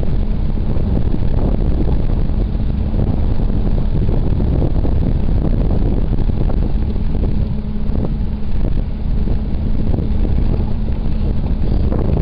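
An engine running steadily, mixed with low wind rumble on the microphone.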